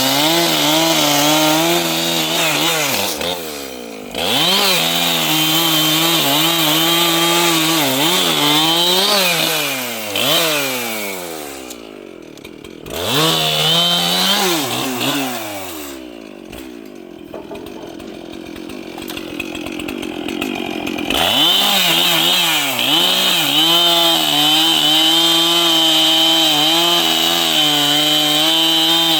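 Large two-stroke chainsaw running at high revs on wood. The revs dip and pick up twice. Past the middle it drops to idle for a few seconds, then throttles back up and runs steadily.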